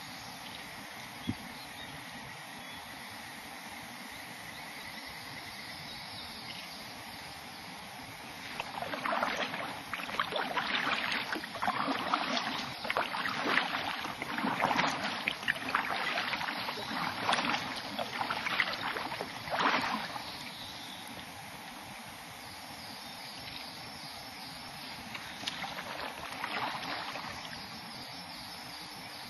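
Kayak paddle strokes splashing and dripping in the water: a run of strokes starting about nine seconds in and lasting about ten seconds, then a few fainter ones near the end. Steady insect chirring sits underneath throughout.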